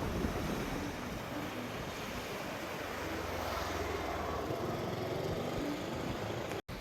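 Sea waves washing ashore with wind rumbling on the microphone, a steady hiss and low rumble throughout; the sound drops out for an instant near the end.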